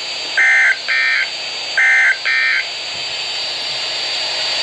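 NOAA Weather Radio's EAS end-of-message SAME data bursts: short, loud, buzzy digital warbles in two quick pairs about a second and a half apart, closing the warning broadcast. After them, steady radio static hiss with a faint high whine.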